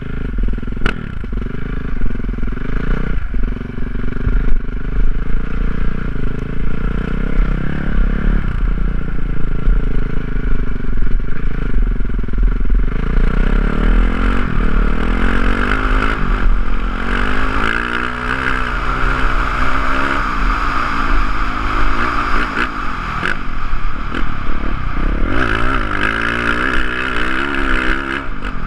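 Motocross dirt bike engine heard through an on-board GoPro as the bike laps a dirt track: the engine runs throughout, and from about halfway in its pitch repeatedly climbs and drops as the rider accelerates, shifts and rolls off for corners.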